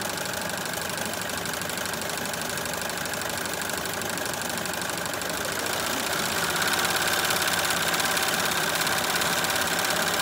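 Melco multi-needle embroidery machine stitching at speed, a fast, steady needle clatter that grows a little louder about six seconds in.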